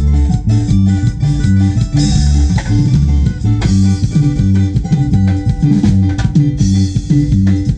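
Band music: a bass line repeating in a steady rhythm, plucked guitar notes and drums.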